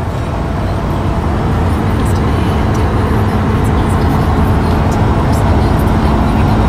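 Car driving: steady engine and road noise that grows gradually louder.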